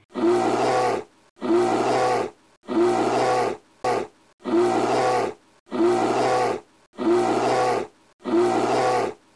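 A bear's roaring growl, played as a sound effect and looped: seven near-identical roars of about a second each, roughly one every 1.2 seconds.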